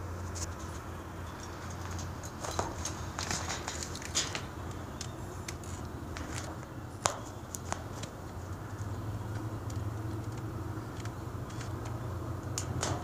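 Scattered sharp clicks and short crackly rustles, mostly a few seconds in and one louder click about halfway, over a steady low hum: handling noise as the phone is moved about at the window.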